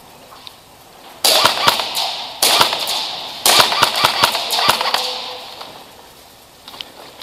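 Airsoft rifle fire: three short bursts of rapid shots about a second apart, each starting abruptly and trailing off, the last one longer.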